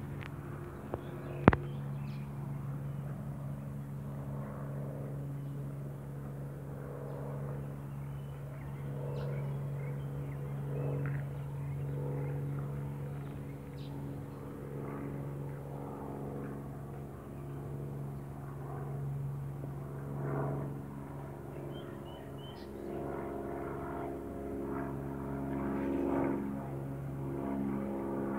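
A steady engine drone, even in pitch, that swells and fades a little, with one sharp click about a second and a half in.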